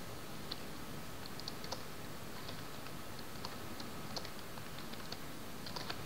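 Computer keyboard typing: faint, irregular key clicks, a few at a time, over a steady low hiss.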